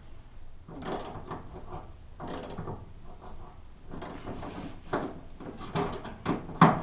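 Stainless steel hose clamp being tightened by hand on a pipe: irregular clicking and scraping of the tool working the clamp's screw, coming in short spells, busier in the second half, with a sharp knock just before the end.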